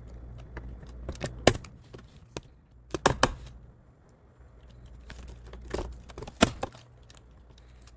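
Keystrokes on a computer keyboard: three short runs of key clicks, about a second in, about three seconds in and around six seconds in, with pauses between.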